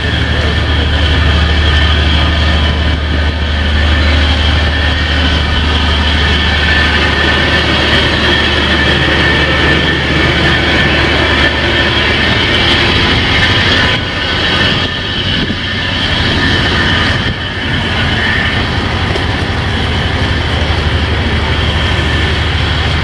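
Loud, steady machinery drone: a low hum under a continuous high-pitched whine, dipping briefly twice in the second half.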